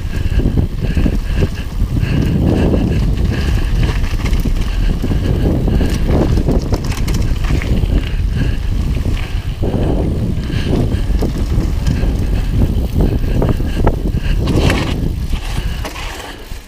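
UMF Freddy One mountain bike riding down a loose gravel trail: tyres crunching over the ground and the bike rattling over bumps, with heavy wind buffeting on a helmet-mounted GoPro microphone. It quietens near the end as the bike slows.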